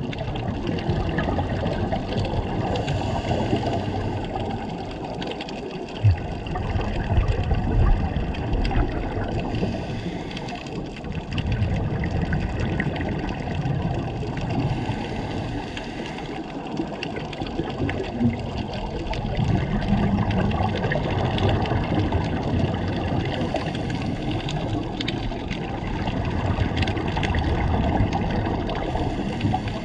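Underwater ambient noise picked up by a submerged camera: a steady, muffled low rushing of water, with an occasional soft thump.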